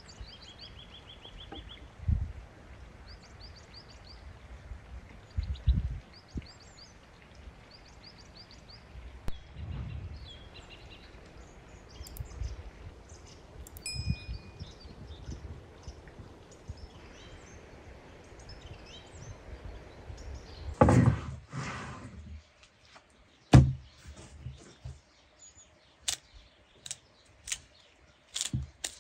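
Small birds chirping and singing in short repeated phrases over a steady background hiss, with a few dull low thumps. About two-thirds of the way in comes a loud noisy burst, then several sharp knocks.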